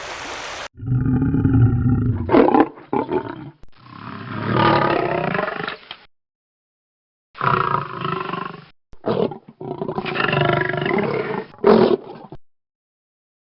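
A large animal roaring: a series of loud, deep calls, about five of them, spliced together with abrupt silent gaps between them.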